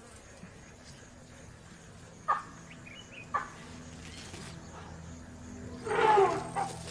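Outdoor bush ambience with birds calling, two short sharp calls about a second apart, then a louder wavering animal call near the end.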